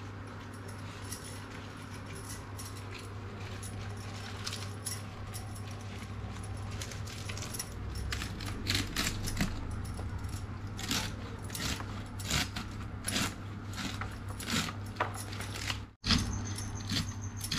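Glass bangles clinking and a small knife cutting cauliflower leaves against a bamboo tray, in irregular clicks and taps that grow busier about eight seconds in. A steady low hum runs underneath.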